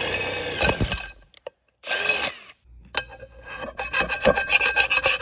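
A drill bit boring into the metal base of a frying pan in two short bursts. From about three seconds in come rhythmic rasping strokes of a metal scraper across the pan, a few strokes a second.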